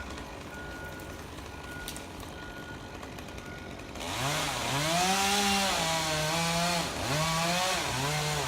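Chainsaw idling quietly, then about four seconds in revving up and running fast, its pitch sagging and recovering several times as it cuts into the top of a dead tree.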